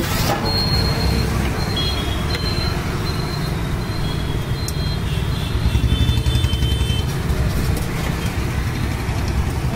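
Road traffic rumbling steadily, growing louder for a second or two around six seconds in, with short high-pitched tones coming and going above it.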